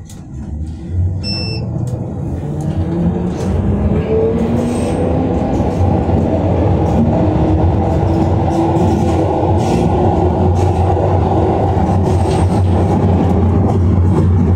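Glasgow Subway train pulling away and running through the tunnel, heard from inside the leading car. Its rumble of wheels on rail builds over the first few seconds as it gathers speed, with a faint rising motor whine, then holds steady and loud.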